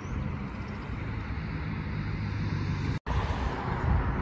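Outdoor street background: a low, steady rumble of road traffic. The sound drops out for an instant about three seconds in.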